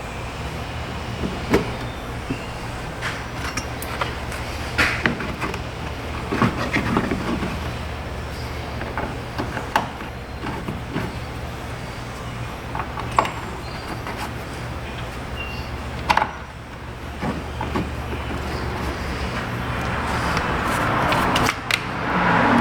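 Scattered clicks and knocks of plastic fender-liner retainers and fasteners being pressed and worked into place, over a steady low hum. A louder click comes about sixteen seconds in, and a rising rush of noise builds near the end.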